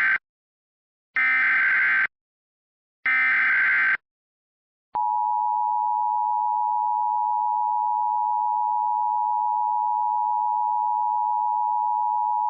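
Emergency Alert System tones: the last of one SAME header data burst and two more digital data bursts about a second each, with short gaps between. From about five seconds in comes the steady two-tone EAS attention signal, which introduces a tornado warning.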